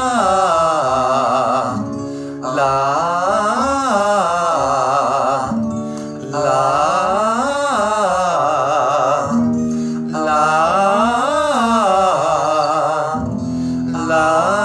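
Vocal warm-up: a singer sings 'la' up and back down a triad over a held accompanying chord, with vibrato on the sustained notes. The pattern repeats about four times, a new phrase every three to four seconds.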